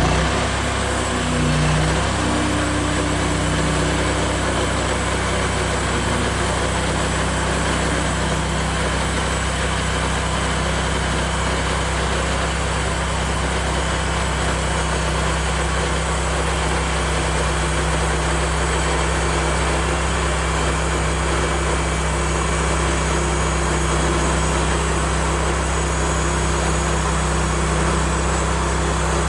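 Woodland Mills HM136MAX portable bandsaw mill running steadily on its small gas engine, with a dense mechanical whir over the engine's drone.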